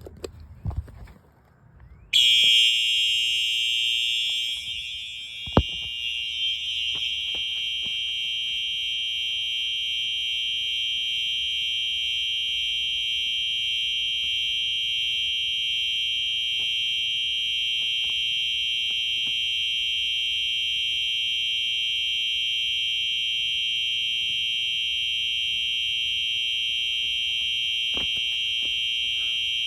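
Fire alarm switched on by being plugged in, sounding a loud, continuous high-pitched tone that starts suddenly about two seconds in and holds steady without a break. A single sharp knock comes a few seconds after it starts.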